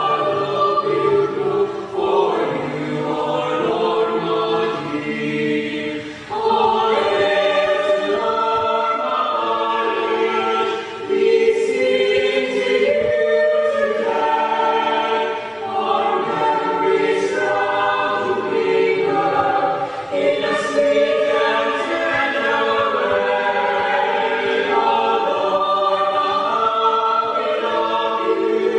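A choir singing in long held phrases, several voices together, with short breaks between phrases.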